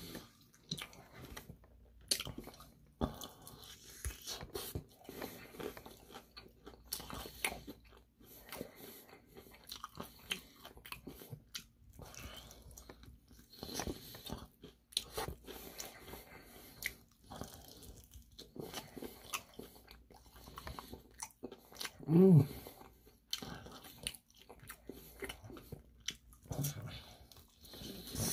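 Close-up biting and chewing of crispy Korean fried chicken: repeated crunches and wet mouth sounds. About three-quarters of the way through comes a short, loud vocal sound.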